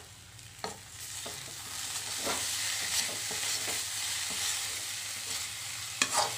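Potato and drumstick curry sizzling in a metal kadhai as a spatula stirs and scrapes through it. The sizzle picks up after about a second. There are a few sharp clacks of the spatula on the pan, two of them close together near the end.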